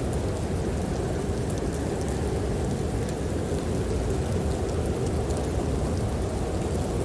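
Snowstorm wind blowing steadily as a low, dense rumble, with the faint scattered crackle of a wood fire in a fireplace ticking over it.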